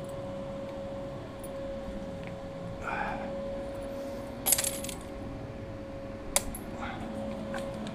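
Small metal objects clinking: a short rattle of clicks about four and a half seconds in and one sharp click about two seconds later, over a faint steady hum.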